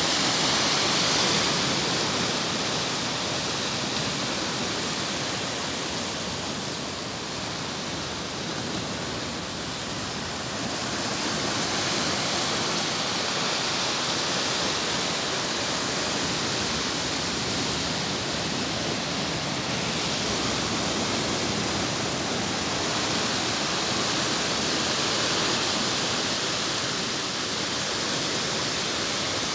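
Sea waves surging against coastal rocks: a steady rush of churning white water that grows louder and eases off over several seconds at a time.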